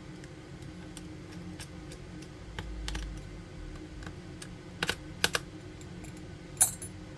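Light, scattered clicks and taps of small repair tools and iPhone 7 parts being handled, with a few louder sharp clicks in the second half. A steady low hum runs underneath.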